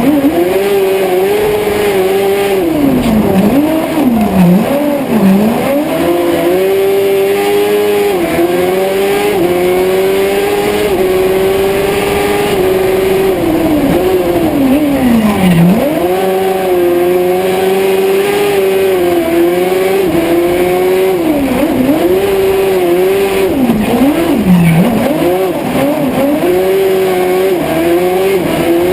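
Honda Hornet 600 inline-four motorcycle engine in an Ape Proto racing three-wheeler, heard on board, running hard at high revs. The pitch holds high and drops sharply about five times as the throttle is lifted for corners, then climbs straight back under full acceleration.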